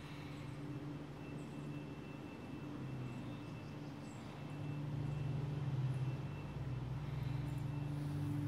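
A steady, low engine drone in the background, growing louder about halfway through.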